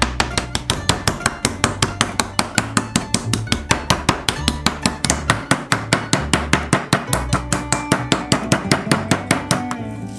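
Metal meat mallet rapidly pounding chicken breast fillets through cling film on a wooden cutting board, an even run of about six sharp strikes a second that stops just before the end.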